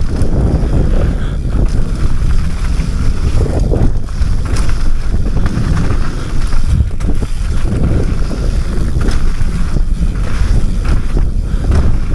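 Wind rushing over a helmet-mounted action camera's microphone during a mountain-bike descent, with a steady low rumble and occasional knocks from the bike over rough ground.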